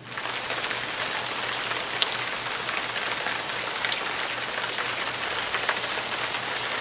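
Heavy rain falling steadily in a downpour, with water running off a roof edge and occasional sharp ticks of drops striking close by.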